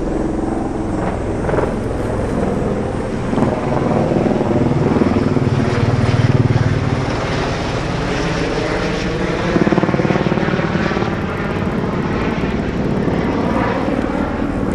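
Sightseeing helicopter passing overhead, its rotor and engine drone steady and growing loudest about six seconds in.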